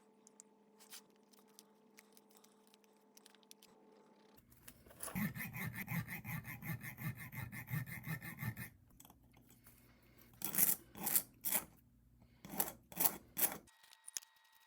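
An abrasive hand tool rasping on a workpiece: quick back-and-forth strokes, about four a second, for several seconds, then after a pause two short groups of slower, louder single strokes near the end.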